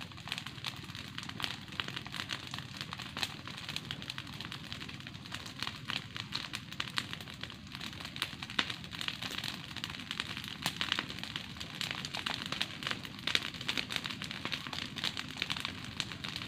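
Open fire burning up the dry, stringy roots and lower trunk of a standing tree, crackling with many irregular snaps and pops.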